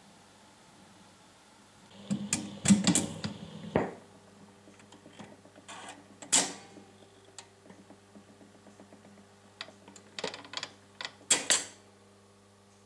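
Tonearm of a Philips AG4116 record player lifted off the spinning record and returned to its rest: a cluster of clicks and knocks about two seconds in, ending in a sharp clunk near four seconds, then scattered mechanical ticks and a second burst of clicks near the end, over a faint steady hum.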